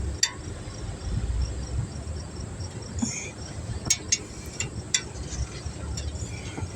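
Insects chirping in a steady, evenly pulsing high trill over a low rumble, with a few sharp clicks scattered through.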